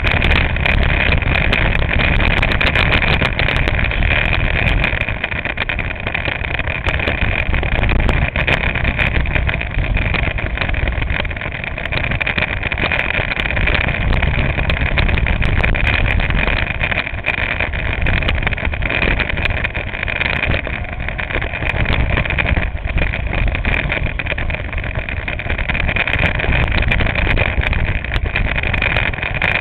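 Go-kart engine running hard, heard from a camera mounted on the kart, with the level dropping off now and then and picking up again.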